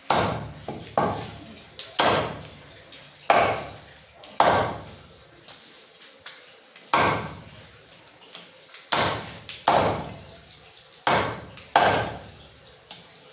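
Cleaver chopping through goat legs on a wooden chopping block: about a dozen heavy strikes, mostly a second or so apart, with a two-second pause midway.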